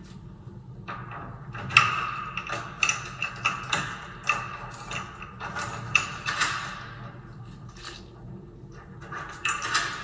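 Kwikset deadbolt being worked with its key: a quick run of metallic clicks and key-ring jingles as the key goes in and turns the bolt to lock and unlock, then more clicks near the end.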